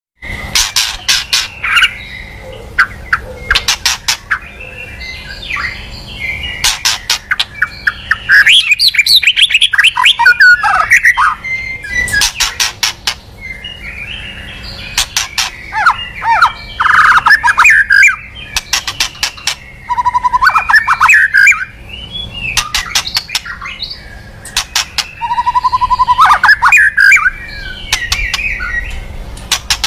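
White-rumped shama (murai batu) singing: varied whistled phrases and pitch glides, broken by quick runs of sharp ticking notes. This is a lure song used to draw in wild shamas.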